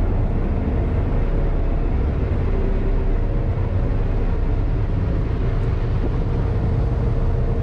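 Car ferry under way: a steady low drone from its engines, mixed with wind and water rushing past the open deck.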